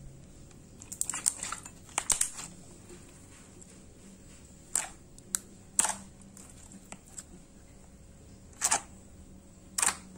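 Thick, glossy homemade slime being poked and pressed by fingers, giving sharp wet pops and clicks as trapped air bursts. A quick run of pops comes about a second in and again near two seconds, then single pops follow every second or so.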